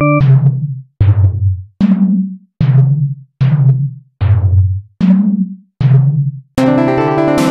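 Music: a run of eight pitched, timpani-like drum hits, about one every 0.8 seconds, each dying away, with the pitch stepping between a low note and a higher one. Near the end a full, sustained keyboard-like chord comes in.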